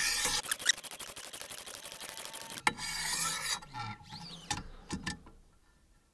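Wicked Edge sharpener's 600-grit stones scraping along a rusty old steel sickle blade: a fine-grit sharpening pass that refines the edge. The scraping is loudest about three seconds in, starting with a sharp click, then thins out to a few clicks and stops.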